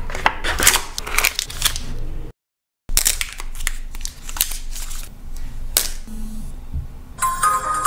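Crinkling, crackling and clicking of a thin plastic protective film being peeled off a smartwatch and of the cardboard box tray being handled. There is a brief dead gap about a third of the way in, and music begins near the end.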